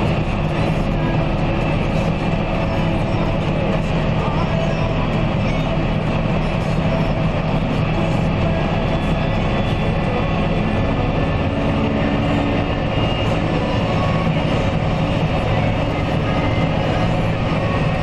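John Deere tractor's diesel engine running steadily under load, pulling a Lemken plough through the soil.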